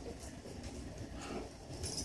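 Faint rustling and scuffling of three-week-old Havachon puppies crawling over blankets and bedding, with a soft brief rustle near the end.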